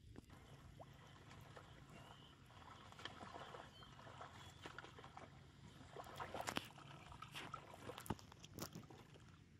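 Faint sloshing and splashing of water with scattered light clicks and knocks, a little louder about six seconds in and again near the end.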